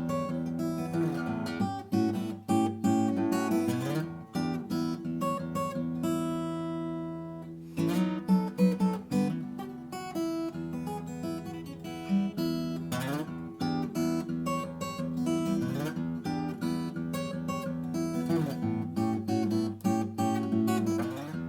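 Vintage Japanese acoustic guitar being played: strummed chords mixed with picked notes, with one chord left to ring out about six seconds in before the playing picks up again.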